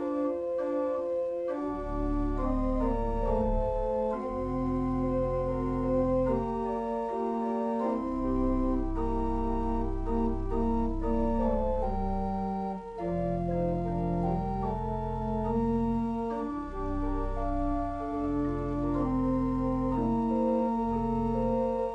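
Organ playing a hymn prelude: slow held chords over deep bass pedal notes that come in and drop out several times.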